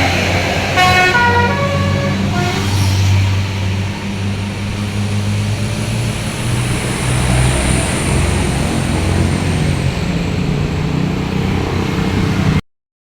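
Tour bus's telolet horn playing a quick run of stepped notes for about two seconds, over the low, steady running of the bus's engine as it goes by.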